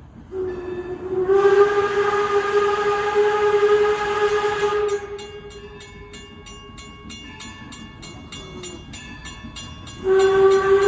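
Train horn sounding a long, steady blast on one note. About halfway through it drops much quieter while a rapid, regular ticking comes in, then near the end the horn is loud again.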